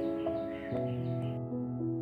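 Background music: soft, sustained notes that change pitch every half second or so.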